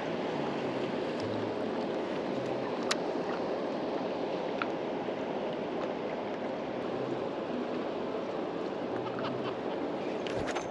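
Steady wind and water noise at the edge of a wide river, with a couple of faint sharp clicks.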